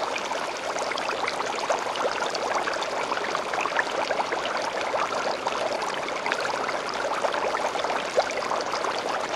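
Steady rushing, bubbling water with a dense fine crackle running through it.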